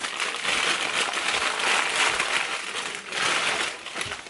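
White packing paper crinkling and rustling as it is pulled off glass candlesticks by hand, in several rustles with a short lull about three seconds in.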